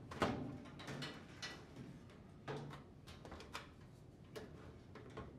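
Scattered clicks and light knocks from handling a washing machine's top panel and snapping a plastic wire-harness retainer onto the wiring. The sharpest click comes about a quarter second in, with smaller ones every second or so after.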